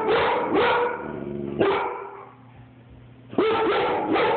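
Labrador retriever barking: short pitched barks in two groups of about three, one group at the start and another after a pause of about a second and a half.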